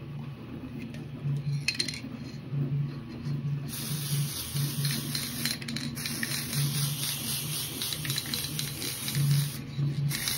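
Aerosol spray can hissing in one long spray that starts a few seconds in. It stops briefly near the end, then sprays again. A low pulsing hum runs underneath throughout.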